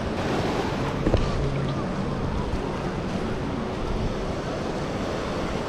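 Wind buffeting the microphone over the steady wash of surf on the beach, with a single short knock about a second in.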